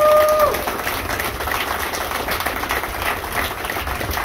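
Crowd applauding, with one voice giving a short held whoop at the very start.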